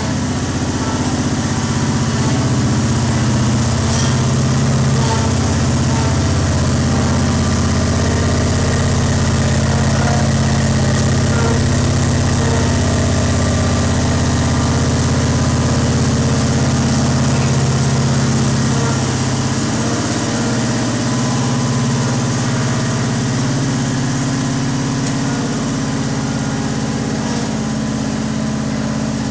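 Engine of a small ride-on double-drum road roller running steadily as it drives over a print bed.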